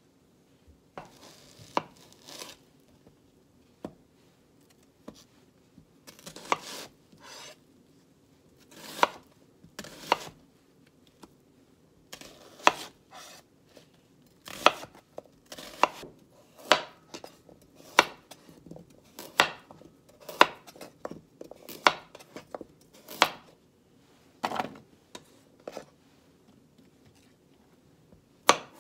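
Kitchen knife chopping an onion and a carrot on a cutting board: sharp, uneven knocks of the blade through the vegetable onto the board, about one or two a second, starting about a second in.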